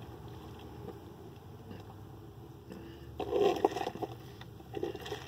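Iced coffee being sipped through a straw from a plastic cup: a short gurgling slurp about three seconds in and a brief one near the end, over a faint steady low hum.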